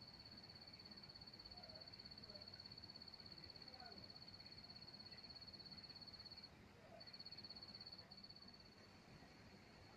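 A steady, high-pitched insect trill, pulsing rapidly, that drops out briefly about six and a half seconds in and again at about eight seconds.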